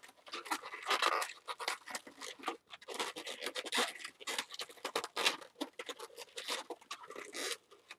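Latex twisting balloons being twisted and handled, rubbing and scratching against each other and the hands in a rapid run of short scratchy sounds.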